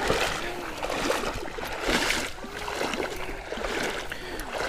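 People wading through a river, the water swishing around their legs with each stride, with swells about every two seconds over the steady rush of the current.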